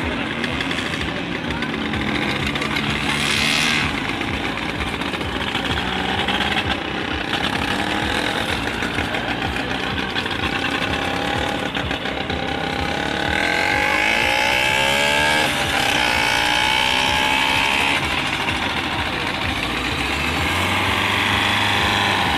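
Engines of small home-built racing tractors running hard as the machines drive past one after another, their pitch rising and falling as each one passes.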